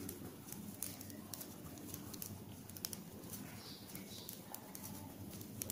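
Knitting needles clicking lightly and irregularly as plain knit stitches are worked in wool, over a faint steady background hum.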